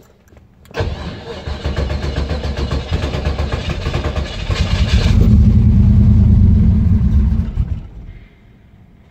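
Turbocharged engine with FiTech fuel injection on E85 being cranked by the starter for about four seconds, then firing and running louder and deeper for a few seconds before cutting out about eight seconds in. It is a hard start, which the owner takes to mean it needs a little more cranking and after-start fuel.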